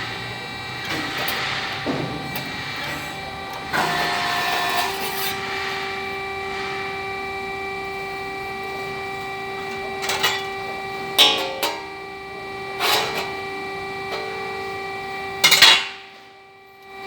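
Steady machine hum made of several held tones. It is broken by a few sharp knocks in the second half and drops away briefly near the end.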